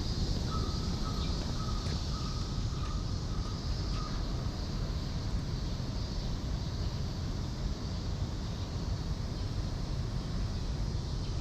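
Cicadas calling together as a steady high buzz over a low outdoor rumble of wind and distant traffic, with a thin steady tone for about four seconds near the start.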